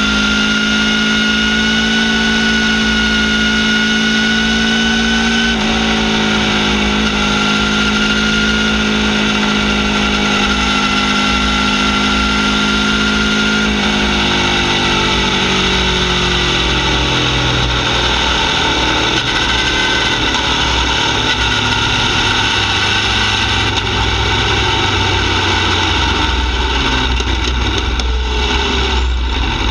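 Aprilia Tuono V4 R's V4 engine running through a full titanium Akrapovic Evo exhaust with a carbon-fibre can while the bike rides along. The engine note climbs slowly, with a short break about five seconds in. It falls away from about halfway through as the bike slows, then runs on at a lower, rougher note.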